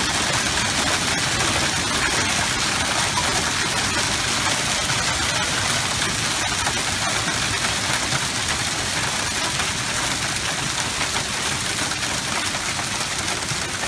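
Extreme hail pelting a driveway, lawn and parked pickup truck: a dense, steady clatter of countless small hailstone hits.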